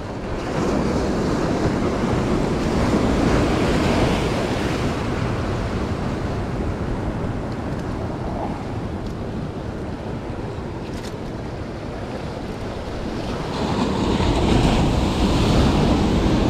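Ocean surf washing over jetty rocks, with waves surging louder about a second in and again near the end.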